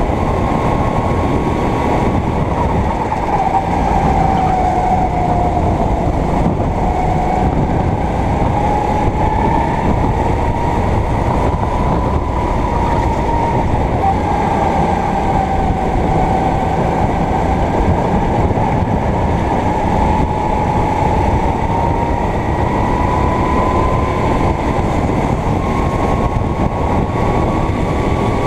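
Go-kart engine running at speed, its pitch falling and climbing every few seconds as the kart slows and speeds up, over a dense, steady rumble.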